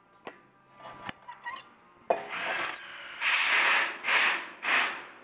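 Aquarium glass being scraped and rubbed clean of old silicone: a couple of light clicks, then from about two seconds in four or five long, loud strokes across the glass.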